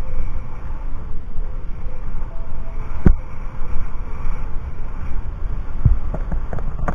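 Wind rumbling on the microphone, with a few sharp knocks about three seconds in and again near the end.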